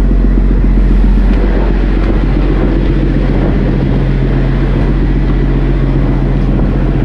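Fishing trawler's inboard engine running at a steady, unchanging drone, heard on deck.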